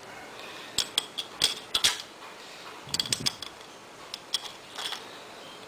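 Metal engine parts and bolts clicking and clinking in short clusters as the cylinder head of a Yamaha Mio scooter engine is bolted back together, with a few sharp metallic taps ringing briefly.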